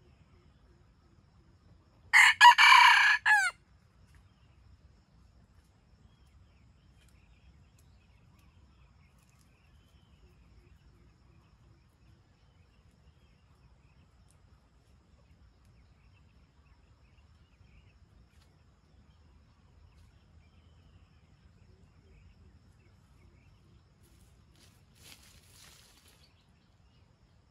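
A red junglefowl rooster crows once, loud and short, about two seconds in, the call dropping in pitch at its end; a much fainter crow answers near the end.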